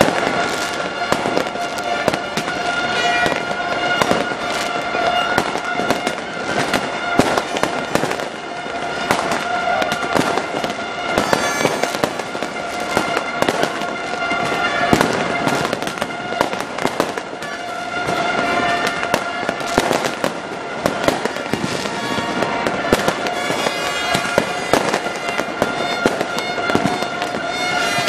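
Fireworks going off continuously, with dense bangs and crackling overlapping one another with no pause. Under them runs a steady high drone.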